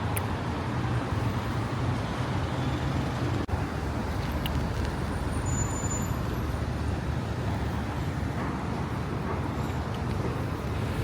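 Steady road traffic noise with a low engine hum, a few faint short high tones over it.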